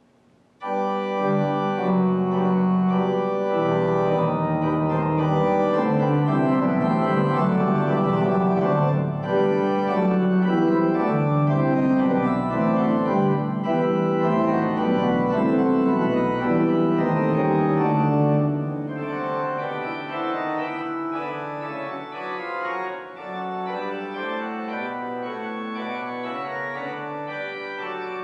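Church organ playing the closing voluntary after the dismissal: full, sustained chords that begin about half a second in and grow softer after about two-thirds of the way through.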